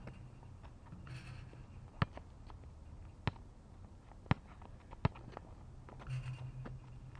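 A basketball bouncing on an asphalt court: four sharp thuds at uneven spacing, roughly a second apart.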